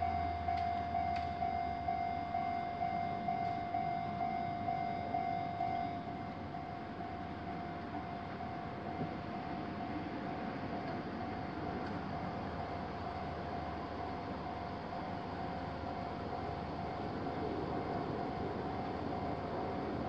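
Japanese railroad crossing's electronic warning bell ringing in a fast steady clang, about two strokes a second. About six seconds in it drops to a quieter level and keeps ringing, while a low rushing rumble grows underneath.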